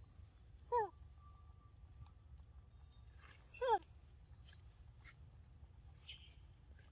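Steady, faint, high insect drone, with a short falling animal call heard twice, about three seconds apart.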